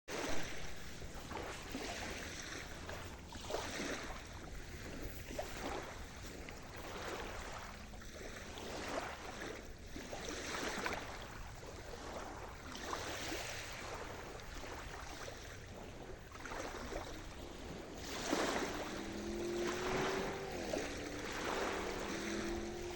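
Sea surf washing in, the waves rising and falling in repeated swells. In the last few seconds a low, steady droning tone joins in over the surf.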